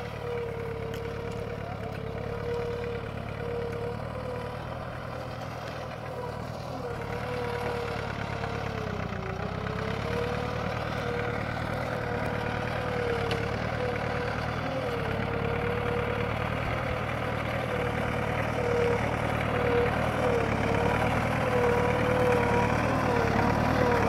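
Tractor engine running steadily under load while pulling a disc plough through the soil, with a wavering whine over the engine note; it grows gradually louder as the tractor approaches.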